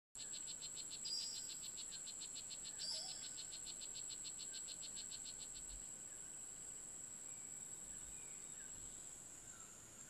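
Rainforest insects: a steady high-pitched drone, with a fast pulsing insect trill over it that fades out about six seconds in, and a few short bird chirps. The sound cuts in suddenly at the start.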